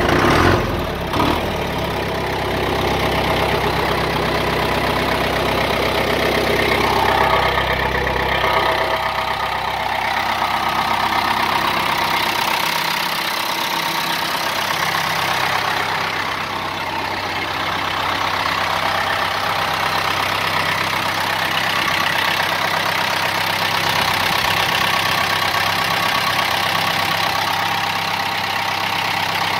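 John Deere 2755's turbocharged four-cylinder diesel engine idling steadily, just after starting.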